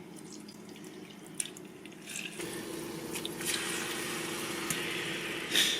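Liquid dripping in a few small drops, then a kitchen tap running steadily with a low hum from about two and a half seconds in.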